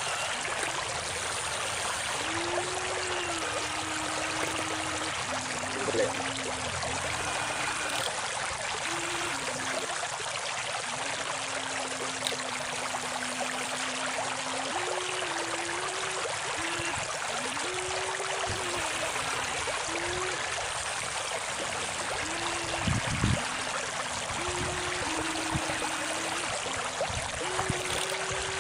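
Steady rush of a flowing stream, with the whine of RC excavator electric motors starting, stopping and shifting between pitches as the toy digger works, and a couple of brief knocks.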